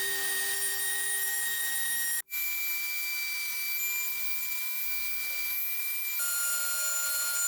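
High-speed power tool working wood with a steady whine. The sound cuts off abruptly about two seconds in and comes back at a different pitch, shifting again near the end.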